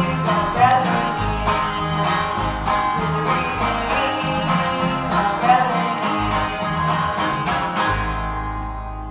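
Live gospel band playing an up-tempo bluegrass-style instrumental passage led by strummed acoustic guitar, with a steady bass pulse. About eight seconds in, the band stops on a final chord that rings out and fades.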